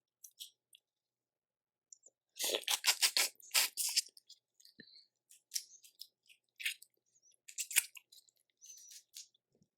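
Close-up eating sounds of a seafood boil: a dense run of crackling and crunching shell about two and a half seconds in, then scattered smaller clicks and chewing.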